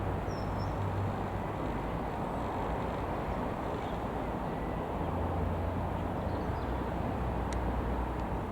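Reims Cessna F152 single piston-engine light aircraft flying over, its engine and propeller giving a steady low drone.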